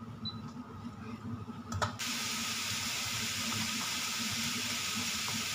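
Sliced pork with ginger and onion frying in a little oil in a wok. A sharp click comes just before a steady sizzle starts abruptly about two seconds in and holds evenly.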